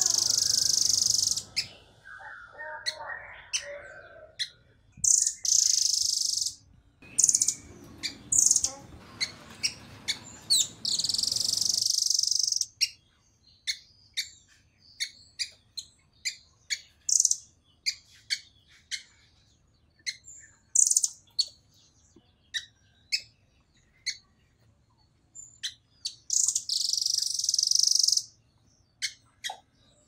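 Blue nuthatch calling: a long series of short, sharp, high notes at about two a second, broken four times by denser high phrases lasting a second or two.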